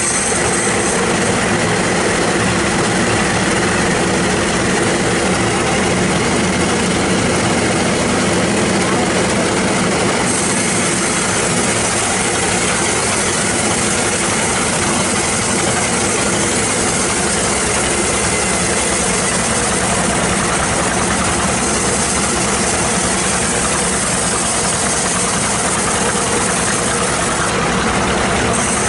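Band sawmill running, its engine and blade cutting steadily through a large log, one loud, even noise without a break.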